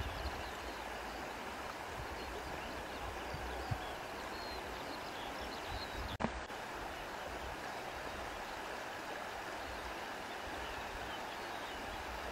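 Steady hiss of flowing river water, with low wind rumble on the microphone. One sharp click comes about halfway through.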